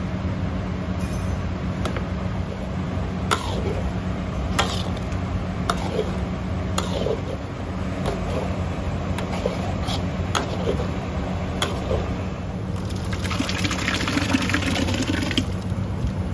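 A utensil knocks against a metal container about once a second as chilli and shallot paste is stirred, over a steady low hum. About 13 seconds in, the paste goes into a pot of broth with a two-second rush of splashing liquid.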